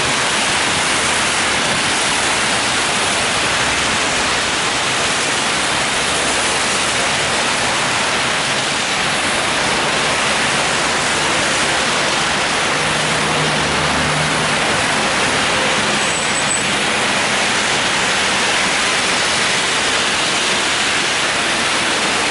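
Steady hiss of heavy rain mixed with car tyres swishing along a wet multi-lane road. A passing vehicle's engine hum shows briefly about two-thirds of the way through.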